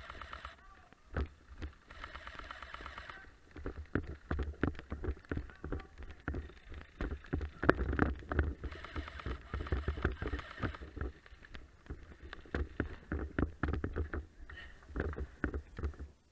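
Airsoft guns firing in an exchange: many sharp, irregular clicks and snaps, some in quick runs, with fainter shouting in the distance.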